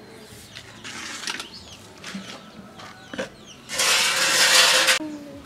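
Fingers scraping ground paste off a rough stone grinding slab (sil-pata) into a small plastic bowl: a few light knocks and taps, then a scraping hiss of about a second near the end.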